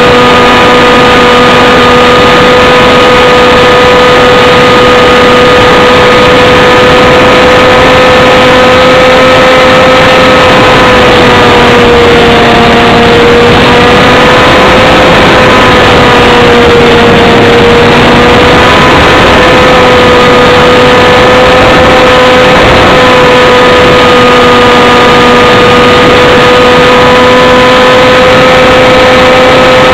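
Model airplane's motor and propeller running at a steady pitch, heard loud and distorted from a camera on the plane, over a rush of airflow noise. The pitch sags a little twice near the middle.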